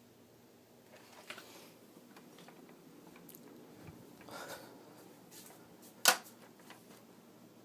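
Handling noise: soft rustling and small scattered clicks, with one sharp click about six seconds in.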